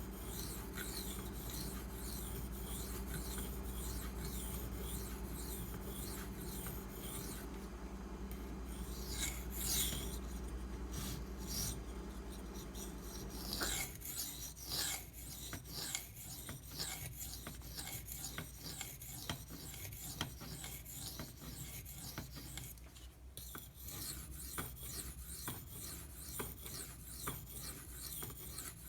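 Steel knife blade, a Maxamet-steel folder, scraped in repeated strokes across a whetstone: a steady rasping grind that turns into more distinct separate strokes about halfway through.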